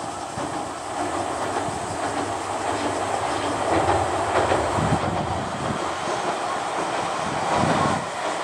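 Chikuho Electric Railway 2000 series articulated electric train running across a steel girder river bridge: a steady rumble of wheels on rails, with clacks as the wheels cross rail joints.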